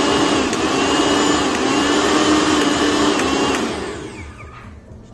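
Lifelong mixer grinder's motor running empty with no jar fitted, a steady run with a whine over a hum. About three and a half seconds in it is switched off and spins down, fading away.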